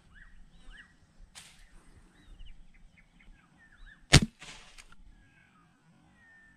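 A single sharp shot about four seconds in, with a short hiss after it, fired at a small fish in shallow saltwater. Faint bird chirps run underneath.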